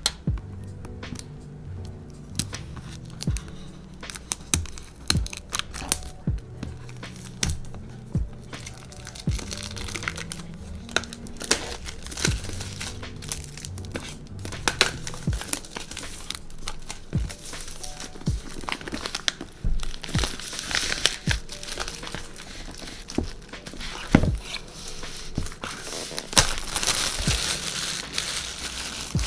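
Clear plastic shrink wrap crinkling and tearing as it is peeled off a cardboard laptop box, with many sharp crackles. The crinkling grows denser in the second half.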